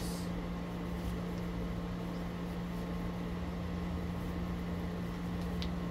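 Steady machine hum with a constant low tone and an even hiss, with a faint click near the end.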